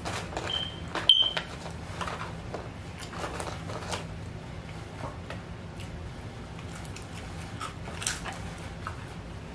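Fingers picking fries out of a paperboard fry carton and chewing, scattered small rustles and clicks over a low steady hum. About a second in comes a sharp click with a brief high squeak, the loudest sound.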